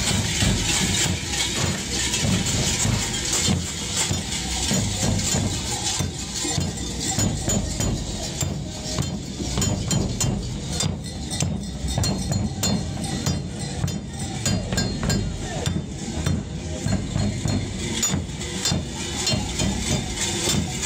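Folión drum band of bombos (large bass drums) and snare drums beating a steady, continuous rhythm.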